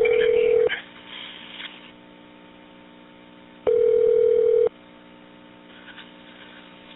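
Telephone ringing tone on a recorded phone line: a steady beep about a second long, repeating every four seconds, over a low line hum.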